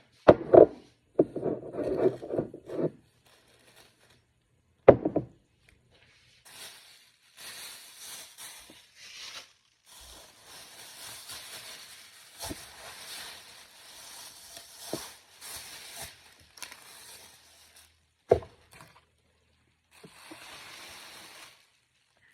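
Groceries being handled and cleaned: items knocked or set down a few times, with scraping and rustling in between.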